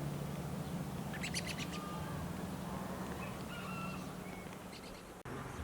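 Small birds chirping and whistling in short calls, with a quick rattle of clicks about a second in, over a steady low hum.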